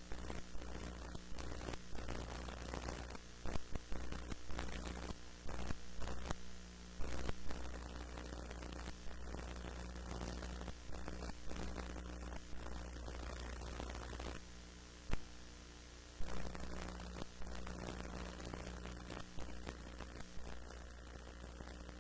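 Steady hiss and low mains hum with scattered crackles and no programme sound: the background noise of an old off-air TV recording while the station card is up.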